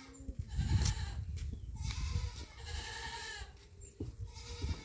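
A young black-and-white dairy calf calling twice, each call over a second long, with a few low thumps between and after the calls.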